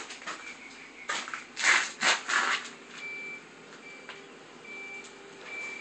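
A few loud scuffing, rustling noises in the first half, then a high electronic beep repeating about once a second, fainter than the scuffs.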